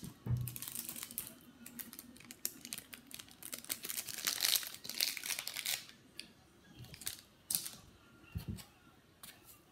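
Crinkling and rustling handling noise close to the microphone, with many irregular clicks and crackles, heaviest around four to five seconds in, and a low thump near the start and another late on.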